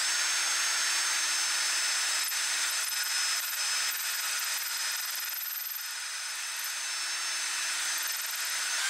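Cordless drill running at a steady speed, spinning a brass rifle case in a Hornady neck-turning tool while the cutter shaves a thin layer of brass off the case neck: a steady whir with a hiss of cutting.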